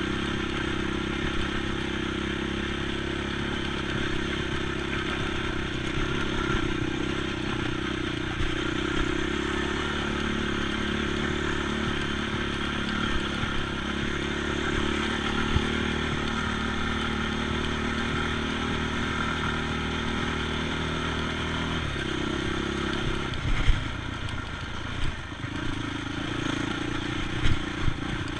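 ATV engine running at a steady speed with rattling and clatter. About 22 seconds in, the engine note drops and shifts, with a few sharp knocks near the end.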